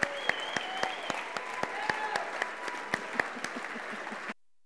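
Audience applauding, a dense patter of many hands with a few voices calling out over it. The applause cuts off suddenly near the end.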